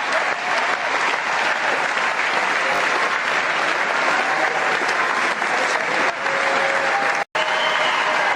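Audience applauding steadily, a dense even clapping, broken by a momentary dropout about seven seconds in.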